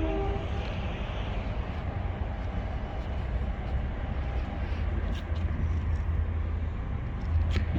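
Audi Q2 running, a steady low rumble, with a few faint clicks.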